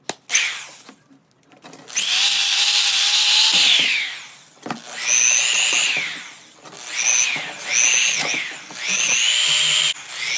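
DeWalt electric sander with a 120-grit disc sanding a mini bike's exhaust pipe. It is switched on and off in about four runs of a second or two each, with a whine that rises as it spins up and falls as it winds down, and a few short clicks in the first second.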